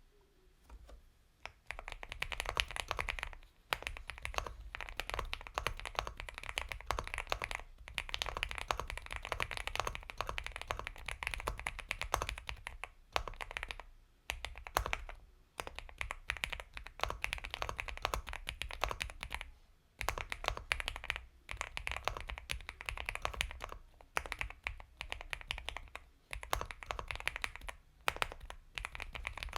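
Continuous fast typing on a mechanical keyboard, an Epomaker x Feker Galaxy 80 with Gateron Milky Yellow Pro linear switches, giving soft, creamy keystrokes. The typing starts about a second and a half in and runs in quick bursts broken by brief pauses.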